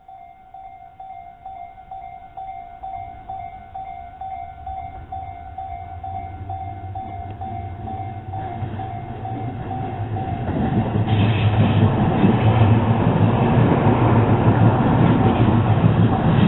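Japanese level-crossing warning bell ringing its electronic clang about twice a second as a Tobu 10030-series electric train approaches. The train's rumble grows steadily, is loudest from about eleven seconds in as it passes over the crossing, and drowns the bell.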